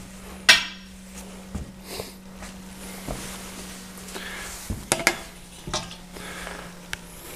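Metal knocks and clinks from the finned metal heat sinks being handled: a sharp clack about half a second in, a few lighter knocks, and a quick cluster about five seconds in. A steady low hum runs underneath.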